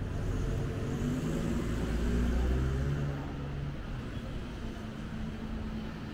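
A motor vehicle's engine running close by, a low rumble that is loudest for the first three seconds and then fades.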